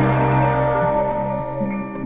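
Ambient electronic music with sustained, layered tones, fading a little near the end.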